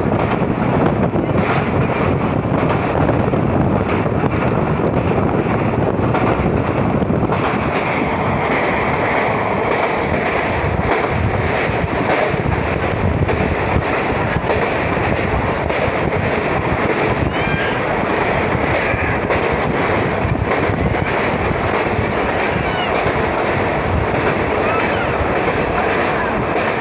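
Steady noise of a train running at speed, with heavy wind buffeting the microphone; the noise turns brighter about seven seconds in.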